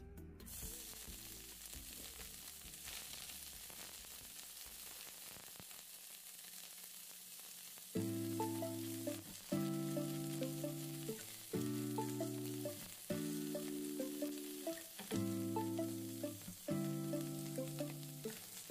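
Canned sliced mushrooms sizzling steadily as they stir-fry in hot oil in a nonstick pan, the sizzle starting about half a second in. From about eight seconds in, background music with repeating chords plays over it, louder than the frying.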